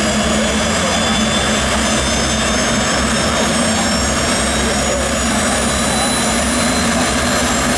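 Westinghouse jet engine of a jet-powered drag-racing pickup truck running steadily while the truck sits stationary: a loud, even rushing noise with high whining turbine tones.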